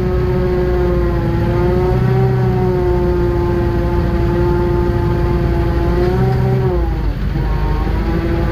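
A small engine running steadily at high revs, its pitch dipping briefly about seven seconds in and then picking up again.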